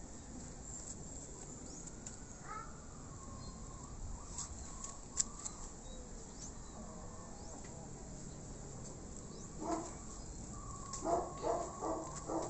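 A dog barking: one short bark about ten seconds in, then a quick run of four barks near the end, over a faint background with a few small ticks.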